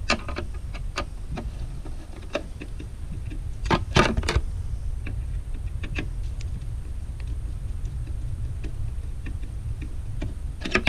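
Phillips screwdriver turning out a tail light mounting screw: irregular light ticks and clicks of metal on metal, with a louder clatter about four seconds in, over a steady low rumble.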